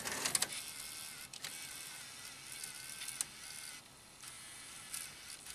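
Tascam DA-30 mkII DAT deck's loading mechanism, on a freshly replaced loading belt, drawing in a DAT cassette and lacing the tape. A few clicks come first, then a small motor whirs with a wavering whine for a couple of seconds, and there is one more click near the end. The load completes, so the new belt has cured the loading fault.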